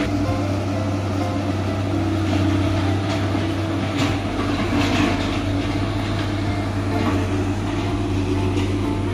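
Diesel engine of a Hitachi crawler excavator running steadily, a constant low drone.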